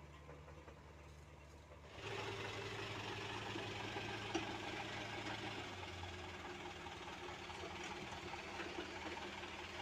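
Low steady diesel engine hum that jumps sharply louder about two seconds in, becoming the steady run of a Komatsu mini excavator's diesel engine heard from the operator's seat while it works. There is a single sharp knock about halfway through.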